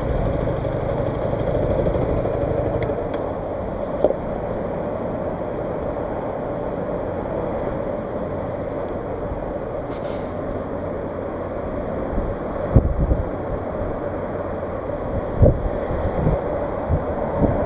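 125cc KTM RC single-cylinder engine idling steadily while the bike stands still. Near the end, a few brief low thumps of wind buffet the microphone.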